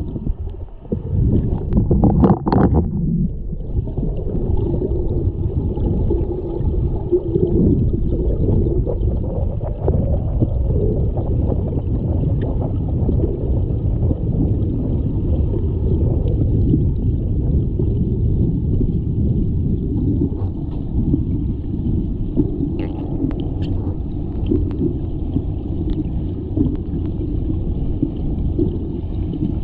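Steady low underwater rumble and gurgle of moving water picked up by a camera held below the surface of a swimming pool, with a brief louder splash-like burst about two seconds in and a few faint clicks later on.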